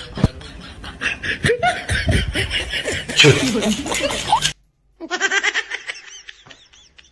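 Laughter in quick repeated bursts. It breaks off abruptly about four and a half seconds in, and after a brief silence more laughter follows, sounding duller.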